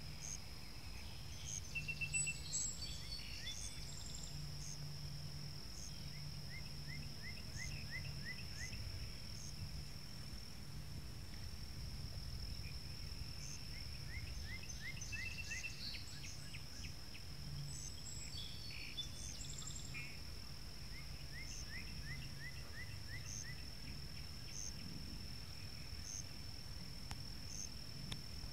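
Pond-side ambience: birds chirping in short rapid trills and frogs calling, over a steady high-pitched insect drone and a low rumble.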